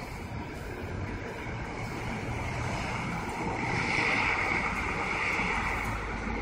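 Street traffic noise: a steady rush that swells and eases again in the middle as a vehicle goes by.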